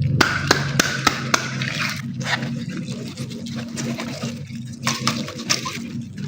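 Water gushing and splashing out of a cut water balloon, with a few sharp clicks in the first second or so and a low steady hum underneath.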